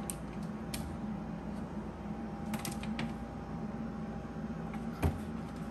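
Wet-bar cabinet doors being opened by hand: a few light clicks and creaks from the hinges and a sharper knock about five seconds in, over a steady low hum.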